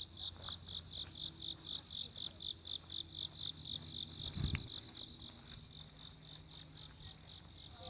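Insects chirping in a steady rhythm, about four to five high chirps a second, over a constant high-pitched buzz. A brief low thump comes about halfway through.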